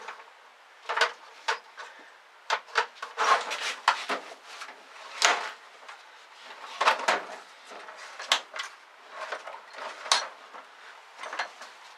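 Loose metal hardware clinking and clattering while someone rummages for a 1/4-inch nut, with irregular sharp knocks and short runs of rattling.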